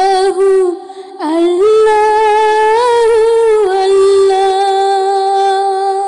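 Woman humming without words in a Bengali gojol (devotional song): a slow gliding phrase, a short break about a second in, then one long held note with a slight waver.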